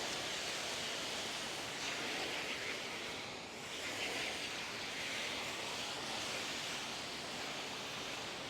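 Soft-wash spray gun hissing steadily as it sprays chlorine solution from a 12-volt soft-wash system onto wood fence boards, easing off briefly about three and a half seconds in.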